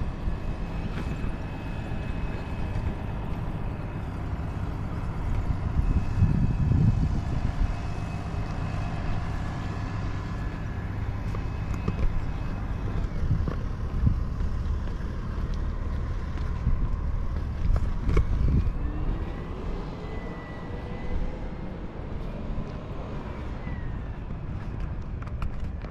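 Outdoor ambience dominated by a steady low rumble of road traffic, swelling a little about six seconds in and again around eighteen seconds. Faint sliding whistle-like tones come and go in the second half.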